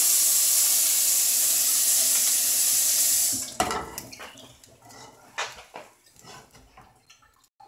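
A loud, steady hiss that cuts off suddenly about three and a half seconds in, then a few light clicks and knocks of a spatula and frying pan on the gas stove.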